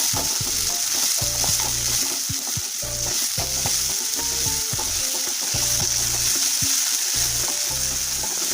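Chopped capsicum and green chillies sizzling steadily in hot oil and ghee while a spatula stirs and scrapes them around the pan as they are sautéed.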